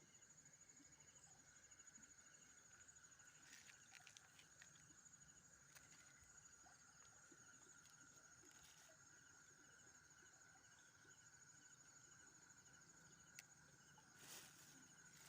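Faint chorus of night insects, steady high-pitched trilling that carries on throughout, with a few soft clicks and a brief rustle near the end.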